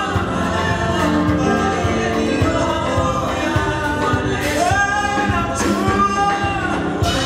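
A church praise and worship team singing a gospel song into microphones, several voices together, over a drum kit playing a steady beat.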